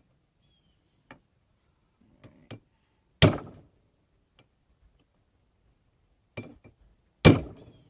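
Hammer blows on a hot railroad spike at the anvil: a few light taps, then a heavy strike about three seconds in, a lighter one just past six seconds, and another heavy strike near the end with a brief high metallic ring.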